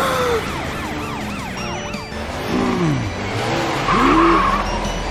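Cartoon chase sound effects: a fast yelping emergency siren for the first two seconds, then swooping vehicle sounds and a tyre screech about four seconds in.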